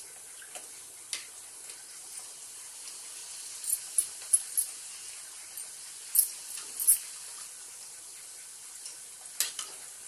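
Kuttu (buckwheat-flour) puris frying in hot ghee in a kadhai: a steady sizzling hiss, with a few sharp clicks and crackles scattered through it.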